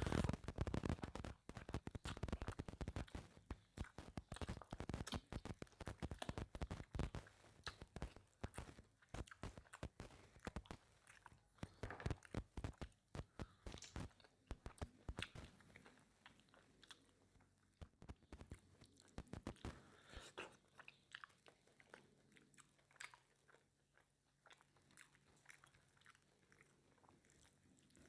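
Close-miked mouth sounds of a person eating mutton curry with rice: wet chewing, biting and smacking. They come thick and loud for the first several seconds, then grow sparser and quieter.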